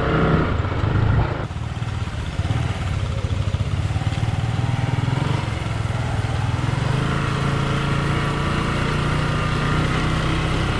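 Motorcycle engine running steadily at low speed, a low even hum, with an abrupt change in the sound about a second and a half in.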